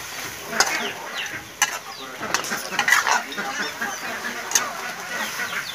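A spatula scraping and knocking against a wok as frog meat and long beans are stir-fried, with several sharp clacks of the spatula on the pan.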